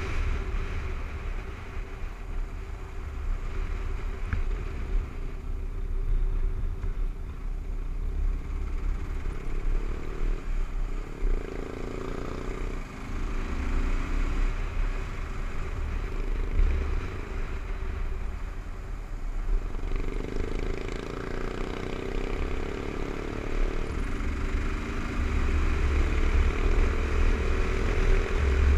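Kawasaki KLR 650's single-cylinder four-stroke engine running while riding, its pitch rising and falling several times with the throttle, over a steady low rumble.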